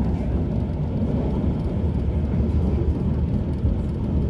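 Stadtbahn light-rail car running, heard from inside the car: a steady low rumble of wheels and drive.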